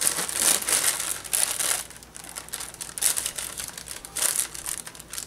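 Plastic bag of brownie mix crinkling in irregular bursts as it is handled over a mixing bowl.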